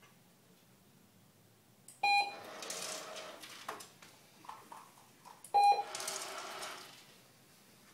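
Remote treat dispenser beeping twice, about three and a half seconds apart: the remote reward signal. Each beep is followed by about a second and a half of rattling noise as the dispenser runs.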